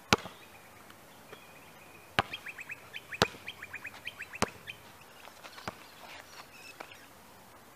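A basketball bouncing on an outdoor asphalt court: four sharp slaps about a second apart, then fainter knocks as play picks up. In the middle, a bird chirps in a quick run of short, high notes.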